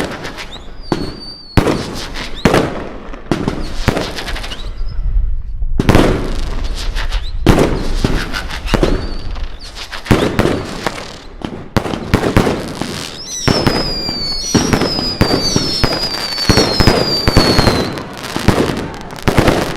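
Fireworks display: a dense barrage of loud bangs and crackling. Several high whistles slide down in pitch over it about two thirds of the way through.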